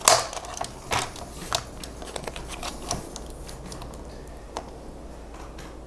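A few clicks and taps from a laminated envelope being shifted and pressed into place on a plastic paper trimmer, with faint handling rustle. The loudest click comes right at the start; the rest are sparse and fade out after about three seconds.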